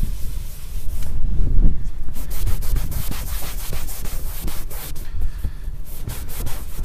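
Microfiber towel rubbing back and forth across leather seat upholstery in quick repeated strokes from about two seconds in, buffing off excess leather conditioner, over a low rumble.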